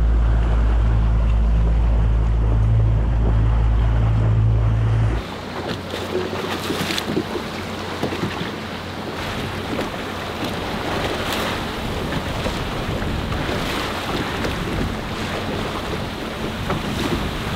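A panga running at speed, with a loud, steady low rumble of outboard motor and wind on the microphone. About five seconds in it cuts off suddenly, giving way to choppy sea water washing against the hull and wind, with a few brief splashes.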